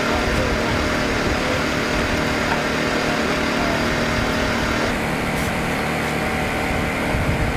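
Small engine running steadily at a constant speed, a droning hum with several steady tones; the sound shifts about five seconds in as the upper hiss drops away.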